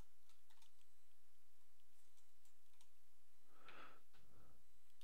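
Faint, sparse clicks from a computer keyboard and mouse over a steady low hum, with a soft breathy sound about three and a half seconds in.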